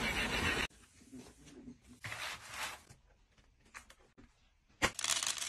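A loud stretch of noise cuts off under a second in; then faint handling sounds of a plastic computer keyboard being lifted and turned over on a wooden desk, with a sharp knock and a short rustling rattle near the end.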